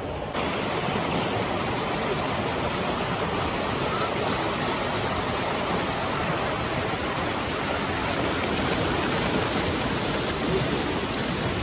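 Shallow, fast-flowing mountain river rushing over stones and boulders, a steady loud rush that cuts in abruptly just after the start.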